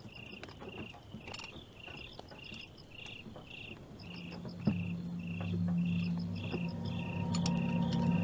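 Crickets chirping in an even train, about two chirps a second. About halfway through a low steady drone comes in and slowly grows louder under them.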